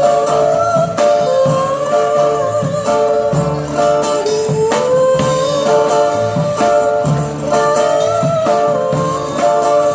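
A live street busking band playing a song: a gliding melody line over steady guitar chords and a regular bass beat.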